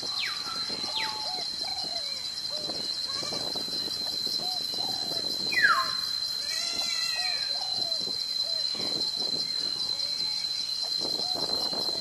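A flock of domestic ducks giving many short, soft quacks and murmurs while resting in a swamp. A steady high-pitched whine runs underneath. Three whistled calls slide downward, the loudest about five and a half seconds in.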